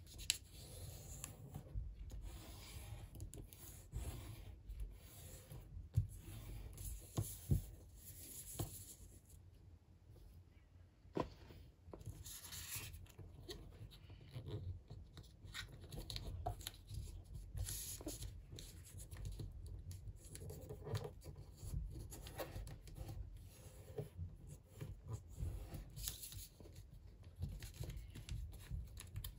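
A sheet of origami paper being folded and pressed flat by hand: rustling and the swish of fingers rubbing along the creases, with a few light clicks.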